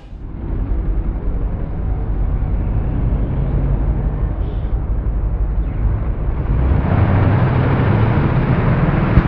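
Drag-race car engines running at the starting line, a low rumble that grows louder and busier about seven seconds in as the cars come up on revs at the green light. A short sharp crack comes just before the end.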